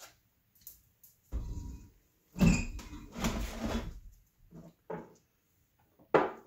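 Chevy 454 big-block cylinder head being shifted and flipped over on a workbench: a series of irregular clunks and scrapes, the loudest about two and a half seconds in, with a short sharp knock near the end.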